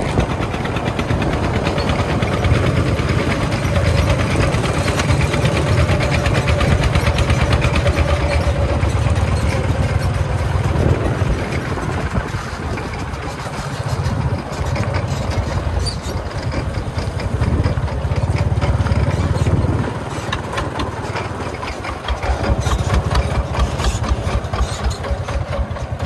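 The single-cylinder diesel engine of a công nông three-wheeled dump truck running, with fast, even firing. It swells and fades in loudness several times as it works.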